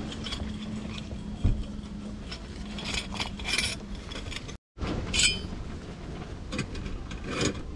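Stainless-steel lantern warmer being slid out of its cloth pouch, with rustling and light metal clinks. About halfway through it is fitted onto a camp gas stove's pot supports, with a few more metal clinks.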